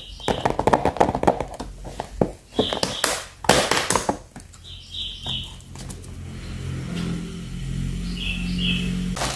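Clear plastic storage box and the rolls of washi tape inside it being handled: a busy run of plastic clicks and rattles as the box is opened and the tapes are shifted, easing into quieter handling over a steady low hum. A few short high chirps come through now and then.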